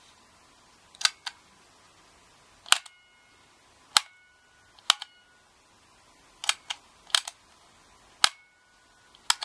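The grey plastic push buttons of an MT-VIKI two-port manual network switch being pressed in and released, about a dozen sharp clicks in small groups of one to three. Some clicks leave a brief ring from the spring mechanism inside.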